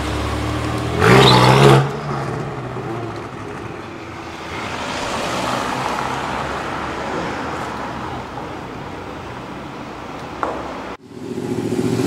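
A modified car's engine and exhaust, running steadily, then revved hard for under a second about a second in. Road and traffic noise follows as cars drive by, then it cuts off abruptly near the end and another engine comes in.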